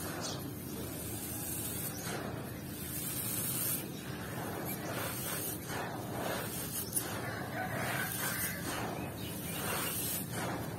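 Dry sand and small gravel chips rustling and crunching as hands dig into a pile. The handfuls are scooped up and poured back down in trickling streams, in repeated grainy rushes.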